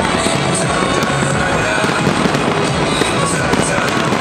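A large fireworks display: a dense, continuous run of bangs and crackles from many shells bursting at once, with music playing.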